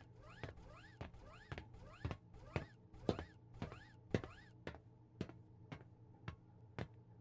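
A steady series of light taps, about two a second, each with a short rising squeak.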